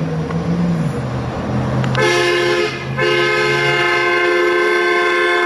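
Hummer H2 with its engine running low and steady, then its horn sounds twice: a short blast about two seconds in and a longer one from about three seconds on.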